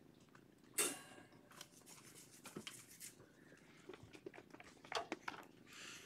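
Cat purring softly, with a sharp click about a second in, then a scatter of small clicks and rustles.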